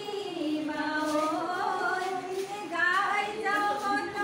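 Women's voices singing a Jeng Bihu song unaccompanied, in long gliding notes.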